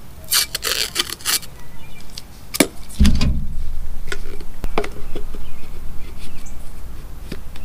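An aluminum pole being handled and worked into PVC pipe fittings. First comes a cluster of scrapes and clicks, then a sharp knock, then a heavier thump about three seconds in, followed by a few scattered clicks.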